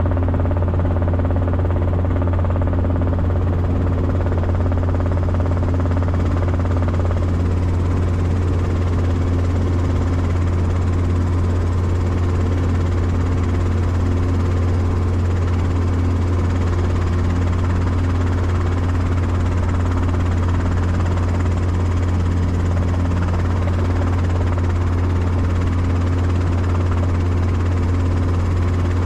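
Light helicopter in flight, heard from inside the cockpit: a steady low drone of engine and rotor.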